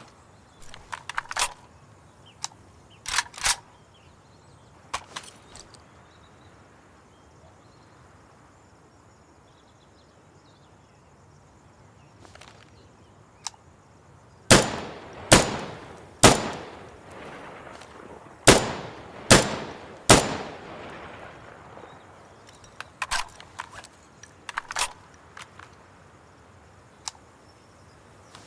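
AKS-74U assault rifle firing single shots: six loud, spaced shots, each with a ringing tail, in the second half, with fainter cracks or clicks before and after them.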